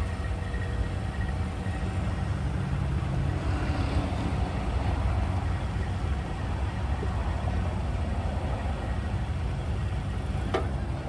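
Vehicle engine running steadily as a low rumble, with a single short knock near the end.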